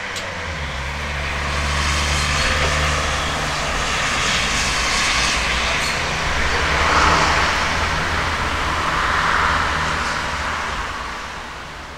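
A steady engine drone with a rushing hiss over it, like an aircraft flying past. It swells over the first two seconds and fades toward the end.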